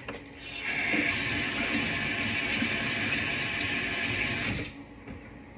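Kitchen tap running with water splashing over romaine lettuce being rinsed in the sink. The flow starts about half a second in and is shut off sharply after about four seconds.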